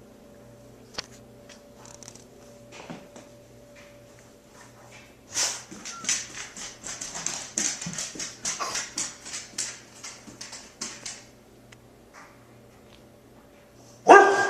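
A pet dog whimpering and panting in a quick run of short sounds lasting several seconds, then breaking into a louder whine near the end. A faint steady hum lies underneath.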